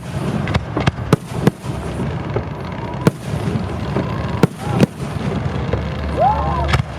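Aerial fireworks display: shells bursting in sharp, irregular bangs, about eight of them, over a steady low rumble.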